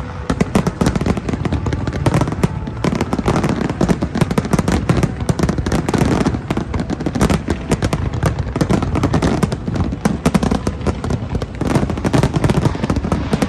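Fireworks display at its height: a dense barrage of shells bursting, rapid overlapping bangs, many a second, with no let-up.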